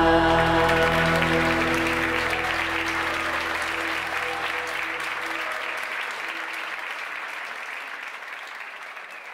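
Audience applause over the last held chord of a live worship band. The chord dies away about six seconds in, and the applause fades steadily down to almost nothing.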